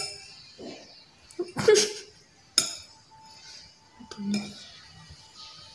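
A metal spoon clinking against a dish, three sharp clinks in the first three seconds, while dough buns are being filled.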